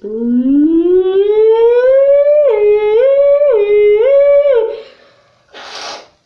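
A person's voice imitating a tornado siren through a cardboard toilet paper tube, echoing in a bathroom. The wail rises slowly in pitch for about two and a half seconds, then switches up and down between two pitches three times before fading. A short burst of hissing noise follows near the end.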